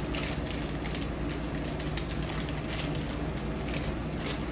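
Plastic snack wrapper crinkling as it is handled and torn open: a run of irregular crackles.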